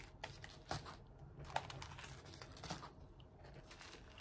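Small zip-lock plastic bags of diamond-painting drills being handled and set down on a canvas: faint, irregular plastic crinkling with light clicks.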